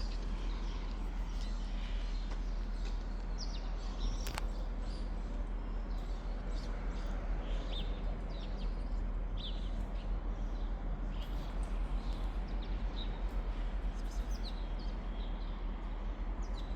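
Small birds chirping in short, scattered calls over a steady outdoor background noise with a low hum, and one sharp click about four seconds in.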